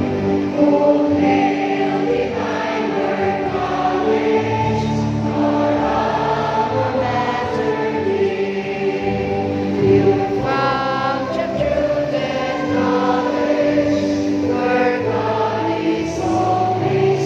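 A choir singing a hymn with instrumental accompaniment, the voices holding long notes.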